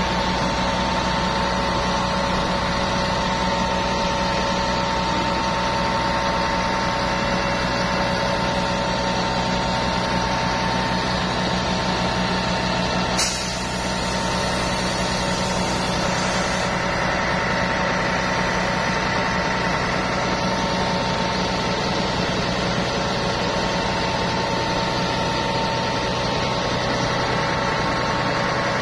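Everdigm truck-mounted concrete boom pump running as its hydraulic boom lifts and unfolds: a steady engine drone with a steady whine over it. A sharp click about halfway through is followed by a few seconds of hiss.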